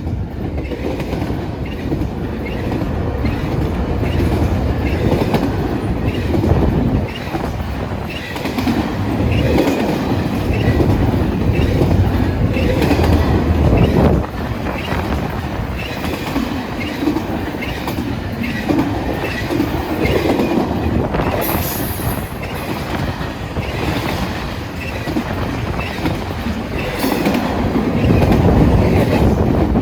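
CSX freight train rolling past, its cars' wheels clacking over the rail joints in a steady rhythm, with wheels squealing now and then.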